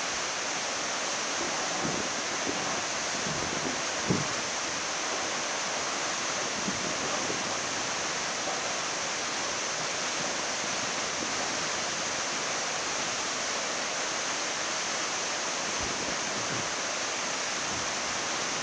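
Steady rushing of a muddy flash-flood torrent.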